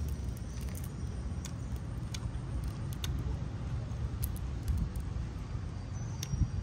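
Scattered crisp clicks and cracks of fried tarantulas being pulled apart by hand, over a steady low rumble.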